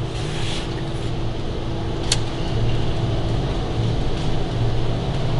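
A single sharp click about two seconds in as the Millermatic 255 MIG welder's power switch is flipped on, over a steady low hum that grows a little stronger once the machine is powering up.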